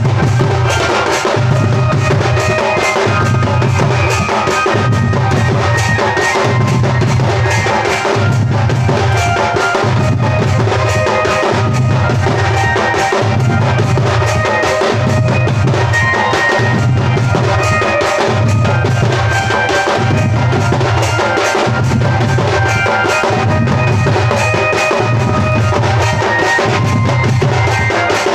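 Loud drum music with a steady beat: a deep pulse about every one and a half seconds under quick, continuous drum strokes, with a higher pitched melody line over it.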